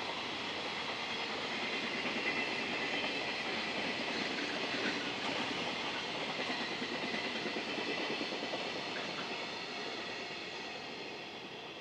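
Container freight train rolling past, the steady noise of its wagons' wheels on the rails, slowly fading near the end.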